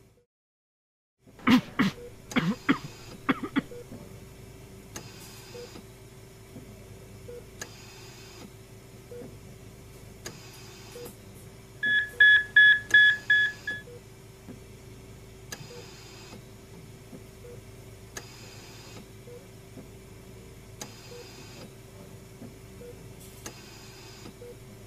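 BPL bedside patient monitor beeping fast and high, about four beeps a second for some two seconds midway, alarming at a racing heart rate of 163. Under it runs a faint steady hum with a soft whoosh every two and a half seconds or so, and a few sharp knocks come in the first few seconds.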